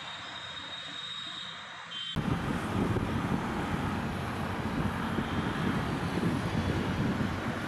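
Rail-side noise: a quieter stretch with a faint steady high whine, then, after a sudden cut about two seconds in, a louder, steady low rumble of a metro train approaching the station, mixed with wind on the microphone.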